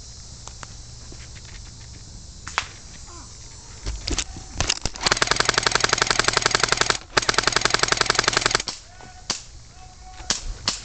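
Airsoft rifle firing: a few single shots about four seconds in, then two long full-auto bursts of rapid, even shots with a short break between them.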